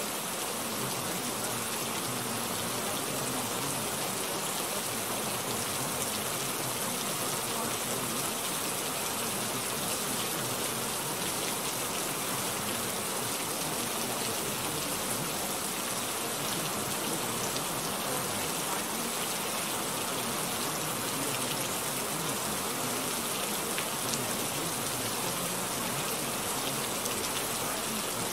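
Steady, unchanging rain-like hiss, brightest in the high range, serving as the masking bed of a subliminal affirmation track.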